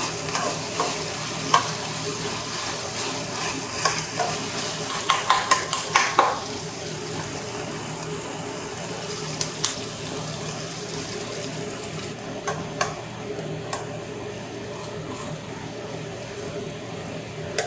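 Chicken thigh pieces and garlic sizzling in oil in a frying pan, with metal tongs clicking and scraping against the pan during the first six seconds or so. Once the sauce is poured in, the sizzle settles to a softer, duller simmer from about twelve seconds in.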